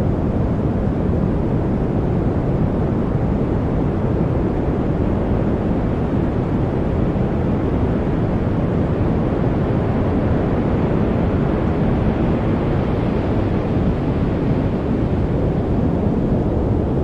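Steady generated noise sold as white noise, but deep in tone: a constant low rush with most of its weight in the bass and little hiss on top, unchanging throughout.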